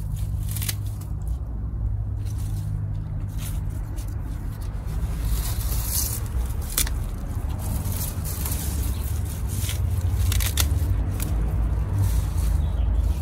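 Salad greens being picked by hand: short crisp snaps and leaf rustles scattered through, over a steady low rumble.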